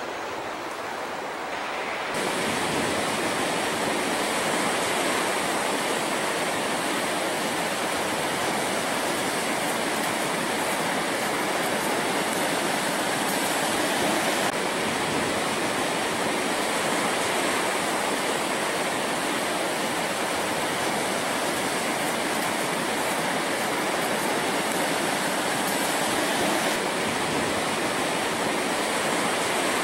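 Steady rushing roar of Pacific Ocean surf, with no distinct rhythm of single breaking waves. It gets louder about two seconds in and changes slightly in tone twice later on.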